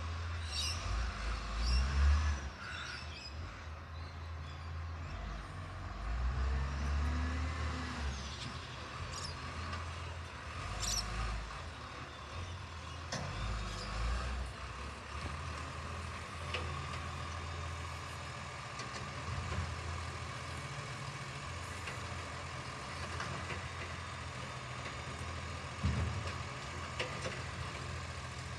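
Garbage truck working along the street: its engine runs with repeated surges, with a few short air-brake hisses and a steady high whine.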